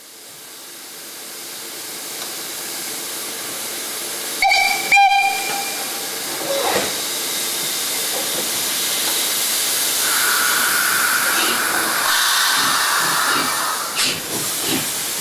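Steam locomotive blowing off steam, a steady hiss that swells louder, with two short steam-whistle toots about four and a half seconds in.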